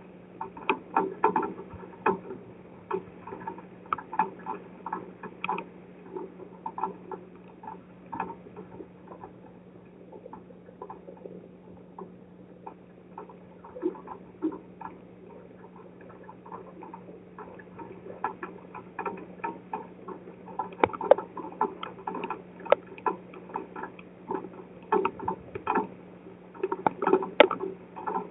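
Raindrops pattering and ticking irregularly on and around a driveway security camera in a strong storm, heavier at the start and again in the second half, over a steady low electrical hum from the camera.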